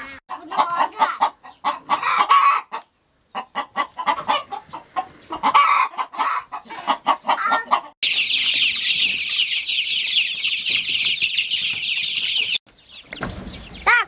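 Chickens clucking in short, repeated calls. About eight seconds in, a brood of chicks takes over, peeping in a dense, high-pitched chorus for about four seconds, and it cuts off abruptly.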